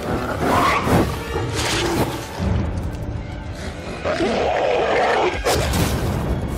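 Sound effects of a beast fight: animal growls and roars over background music, with a sharp hit about five and a half seconds in.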